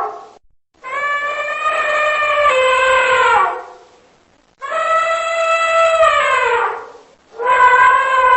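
Elephant trumpeting: a series of long, brassy, high calls, each about two and a half seconds and dropping in pitch as it ends, one after another with short pauses between them.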